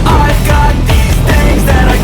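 Loud rock music with distorted guitars and a driving drum beat.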